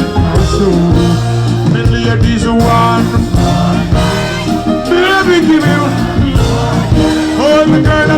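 Reggae music with a voice singing over the band.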